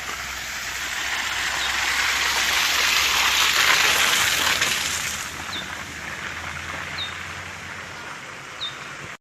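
Hail and rain pelting down in a dense, even hiss that swells to its heaviest about three to four seconds in, then eases off. A few short, high chirps recur about every second and a half through the second half.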